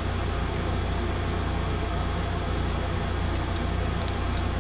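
Steady low background hum. A few faint light clicks come a little past three seconds in and again near four seconds, as small parts of an AR-15 bolt carrier group are handled while the firing pin retaining cotter pin is fitted and turned.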